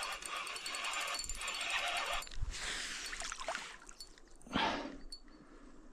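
Fishing reel being wound quickly, a fast even ticking whir for the first two seconds, as a hooked pike is reeled in. This is followed by a few short noisy bursts.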